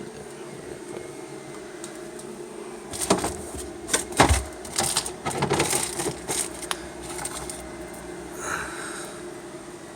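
Irregular knocks and clicks of objects being handled, starting about three seconds in, over a steady room hum.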